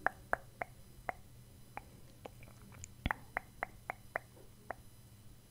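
Close-miked ASMR mouth sounds: a run of soft, wet lip pops and clicks, about two or three a second, bunching into a quick flurry about three seconds in.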